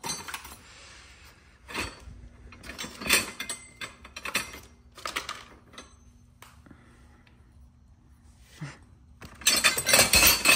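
Loose parts of a snowman decoration kit knocking and clinking as they are handled and sorted: a few separate knocks, then a busier clatter near the end.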